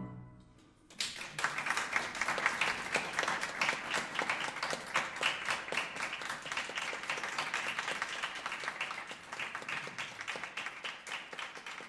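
The last oboe-and-piano chord dies away, and about a second in an audience breaks into applause, which goes on steadily and slowly tapers off near the end.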